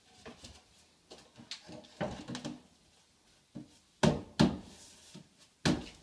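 Pine wall shelf knocking and bumping against the wall and its French cleat as it is shifted and seated by hand: scattered wooden knocks, with three sharp, louder thuds from about four seconds in.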